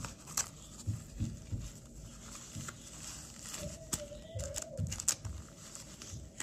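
Disposable dog diaper crinkling as hands press and fasten its sticky tabs tight around a small dog's waist, with scattered soft knocks and clicks from the handling.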